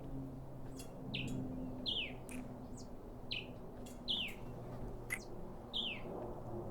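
A bird chirping over and over, each note a short quick downward sweep, repeating a little more often than once a second, over a faint steady low hum.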